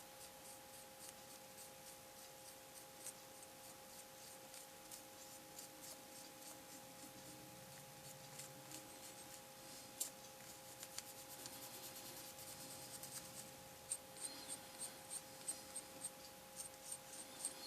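Faint brush strokes scratching and rubbing on a plastic scale model as excess oil-paint wash is worked off, with a quicker run of light ticks near the end. A faint steady hum lies underneath.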